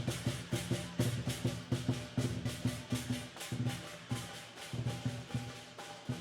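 Drums beaten in a fast, driving rhythm, several strikes a second.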